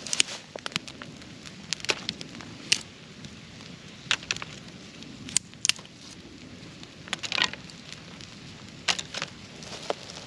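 Wood campfire crackling, with sharp irregular pops and short bursts of crackle over a low steady background.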